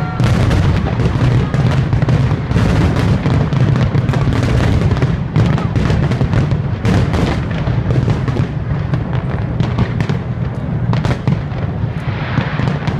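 Aerial firework shells bursting in a dense, rapid barrage: many overlapping bangs over a continuous deep rumble, thinning slightly near the end.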